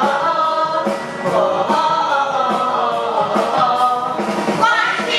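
Several voices singing a Chinese pop song together over musical accompaniment with a steady beat.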